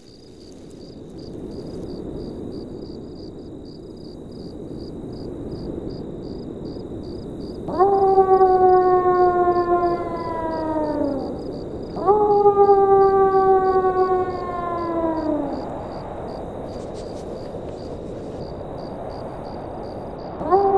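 Wolf howling twice, each a long call of about three and a half seconds that holds its pitch and drops at the end, the first about eight seconds in. Underneath, a hiss that swells in from the start and a faint high ticking about twice a second.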